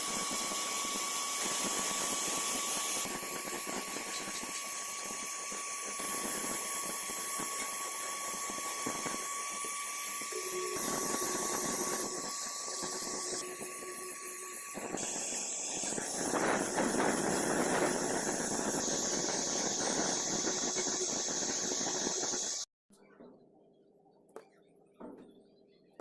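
Power tool running on metal: a steady high whine over loud hiss. It cuts off abruptly about 23 seconds in, leaving a few faint clicks.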